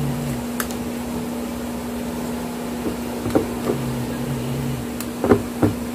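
Steady electric hum of a room appliance such as a fan or air conditioner, with a few light knocks and rustles as a pair of sneakers is handled, the loudest near the end.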